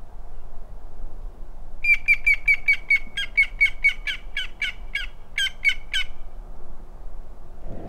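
A bird in a tree calling in a fast series of about twenty short, sharp, harsh notes, some five a second, starting about two seconds in and lasting about four seconds.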